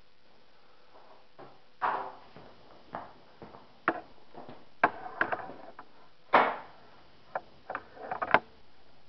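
Irregular knocks and clatter of wood pieces and tools being handled on a workbench, about half a dozen sharp knocks with the loudest about six and a half seconds in.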